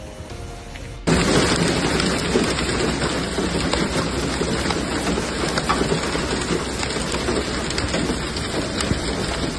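Heavy rain and hail pelting a car, heard from inside it: a dense, steady drumming with a few sharper hits, starting abruptly about a second in after a quieter opening.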